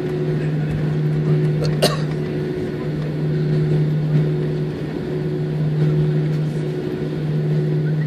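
Steady low hum in the cabin of an Airbus A320 on the ground after landing, with a higher tone coming and going over it and one sharp click about two seconds in.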